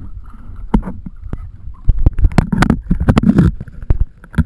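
Waterproof action camera being handled as it comes out of a swimming pool: a run of sharp knocks and clicks on the housing with water sloshing and rumbling against it, busiest about halfway through.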